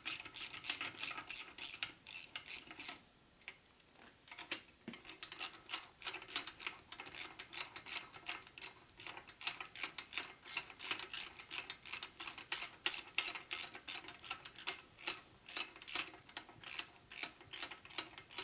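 Hand ratchet clicking rapidly, about four to five clicks a second, as head bolts are run down onto a Harley-Davidson shovelhead cylinder head. The clicking pauses for about a second near the start, then resumes.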